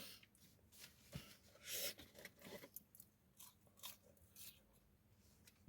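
Faint chewing of crispy fried chips, heard as scattered short crunches and clicks.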